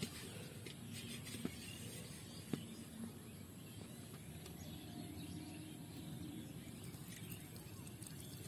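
Quiet rural outdoor background with faint birds and insects, broken by a few light knocks in the first three seconds as a plastic pot is handled.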